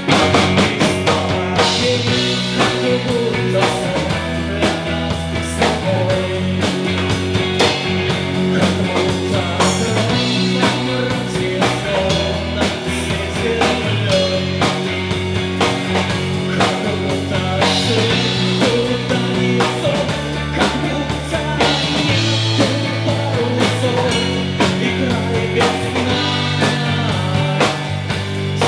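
Live band playing an instrumental passage of a rock song, with a steady beat on the drum kit under guitars and bass.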